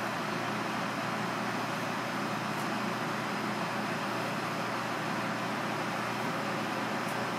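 Steady background noise with a constant faint hum, and twice a faint tap of a chef's knife cutting through cuttlefish onto a plastic cutting board.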